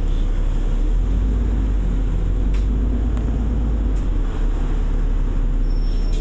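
Bus engine running and low rumble heard from inside a rail replacement bus, steady throughout, with a few light clicks or rattles.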